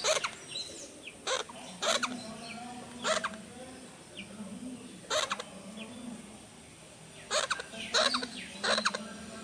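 A bird giving short, sharp calls, about nine of them at irregular intervals, over a faint low steady hum.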